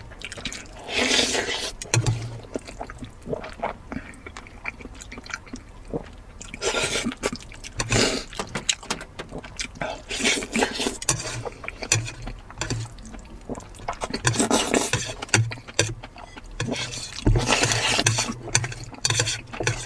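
Close-up eating sounds of a person eating lamb: irregular wet chewing, smacking and slurping in short bursts.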